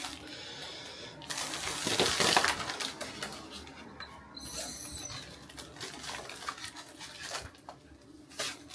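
A hiss of air lasting about a second, then a short squeak and scattered small clicks and rubbing: latex balloons being pumped up and handled.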